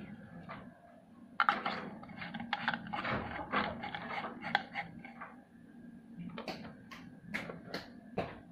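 Plastic clicking and clattering as LED bulbs and a screw-in lamp socket are handled, a quick run of clicks through the middle and a few more near the end.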